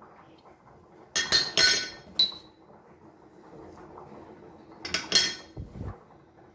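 Small ceramic dish clinking against a ceramic mixing bowl as spices are tapped out: a few clinks about a second in, one ringing briefly, and another cluster about five seconds in, followed by a dull thump.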